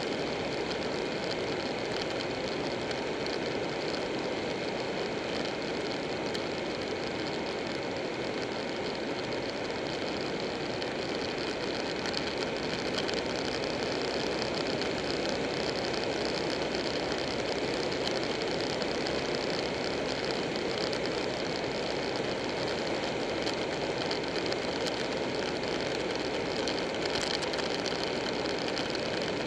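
Buell 1125R motorcycle's 1125 cc V-twin engine running at a steady cruising speed, mixed with wind and road noise on the bike-mounted camera's microphone.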